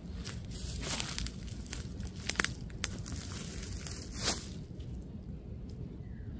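Dry leaf litter rustling and crackling, with a cluster of sharp crackles a little past the middle.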